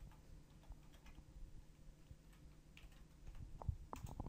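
Faint, scattered clicks of a computer keyboard and mouse, with a few louder clicks near the end, over a faint low hum.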